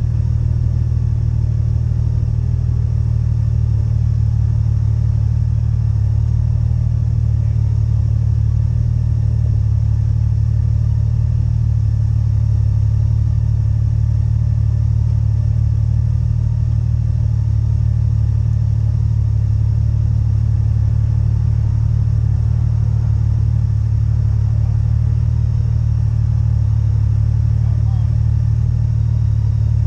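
Motorcycle engines idling steadily, a constant low hum with no revving.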